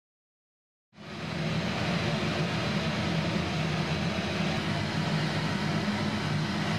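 Steady loud rushing hiss of glass-media shot blasting, compressed air and grit blowing through the nozzle, with a low rumble underneath. It cuts in abruptly about a second in.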